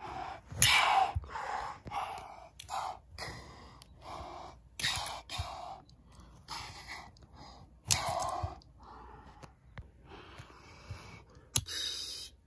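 A child voicing a polar bear with a string of short breathy huffs and growls made by mouth, irregularly spaced.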